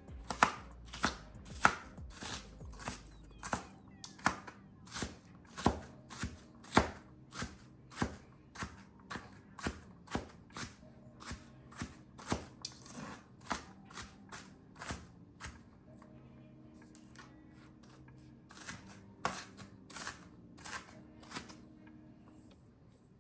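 Kitchen knife slicing an onion into thin slices on a cutting board: steady knocks of the blade on the board about two a second, a pause of a few seconds, then a shorter run of slicing.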